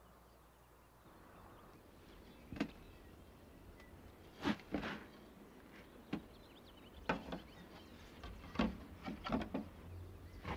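Scattered knocks and rustles on wooden boards, about eight short ones spread irregularly over several seconds, from someone kneeling and moving about in a wooden treehouse.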